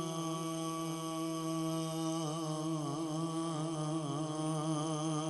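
Male voice in a Punjabi naat recitation holding one long sung note, wavering in slow ornaments, over a steady low tone.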